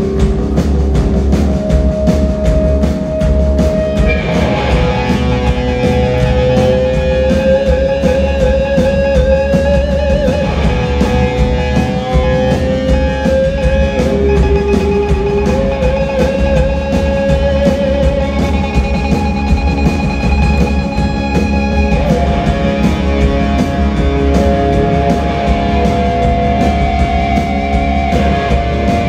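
Loud live rock music from a full band: electric guitars and a drum kit with keyboard, the melody carried by long held notes over steady drumming.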